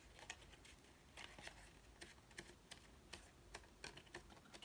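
Faint, scattered light ticks and taps of cardstock paper pieces being handled and pressed together.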